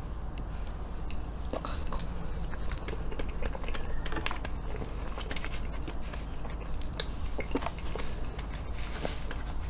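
Close-miked chewing of a soft chocolate sundae pie, with many small irregular mouth clicks over a steady low hum.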